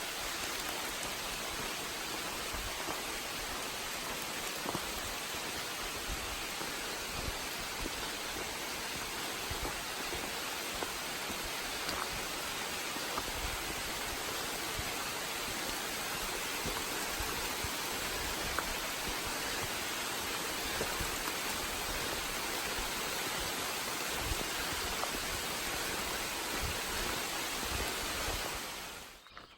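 Steady hiss of falling rain, even and unbroken, with a few faint drop ticks; it starts and stops abruptly.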